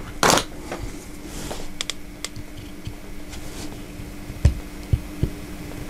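Scattered light clicks and taps of small parts and hand tools being handled, with needle-nose pliers picking at the plastic gear inside the small geared synchronous motor's metal housing; a louder clatter comes just after the start. A faint steady hum runs underneath.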